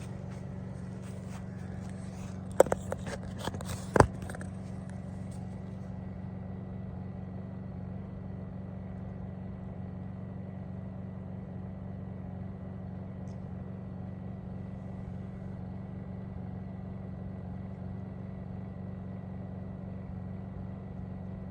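Honda portable generator running steadily in eco mode, heard from about 30 feet away as a low, even hum. Two sharp knocks, about two and a half and four seconds in.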